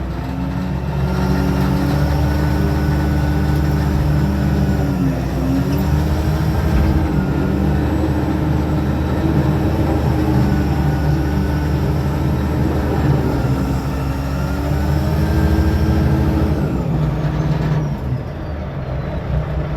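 Heavy vehicle engine running steadily under load, its pitch dipping and coming back up a couple of times.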